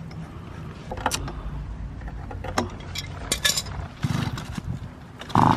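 Scattered light clicks and scrapes of small metal parts and hand tools being handled while a dirty spark plug is cleaned, with no engine running.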